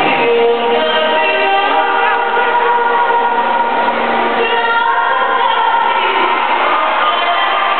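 Several voices singing together in long held notes that change pitch every second or two.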